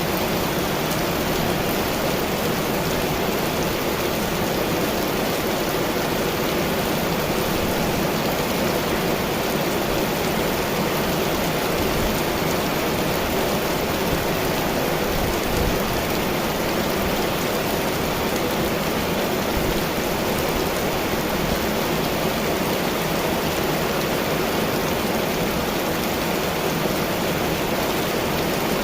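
Heavy rain pouring down in a summer storm, a steady, even hiss of water with no thunder.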